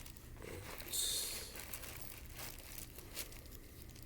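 Crinkling, rustling handling noise, with a brief louder rustle about a second in.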